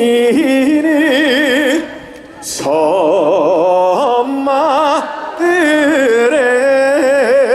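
A man singing a trot melody without accompaniment, holding long notes with wide, even vibrato, with a brief breath pause about two seconds in.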